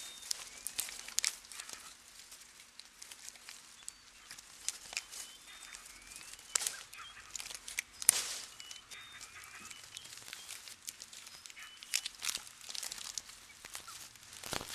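Irregular rustling and crackling of leaves and twigs as a chimpanzee feeds on leaves in a tree, the loudest crackle about halfway through. Faint short bird chirps sound now and then.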